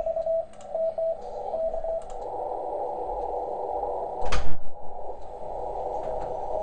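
Morse code (CW) on the 30-metre amateur band, heard through a Softrock Ensemble II SDR receiver running PowerSDR: a single beat tone keyed on and off over receiver hiss. The keying stops about two seconds in, leaving band noise, with a sharp knock about four seconds in, and resumes near the end.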